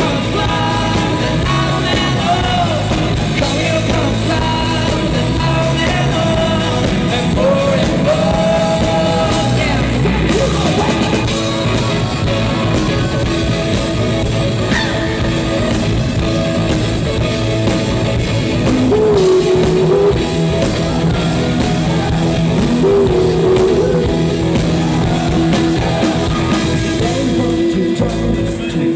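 A rock band playing live: a lead singer's melody over a full band with drums, loud throughout.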